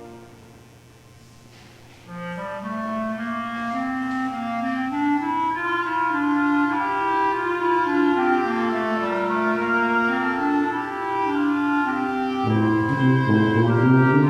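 Woodwind ensemble music, clarinets leading: a loud chord dies away in the room's reverberation, then several reed lines weave a slow passage, with lower instruments coming in louder near the end.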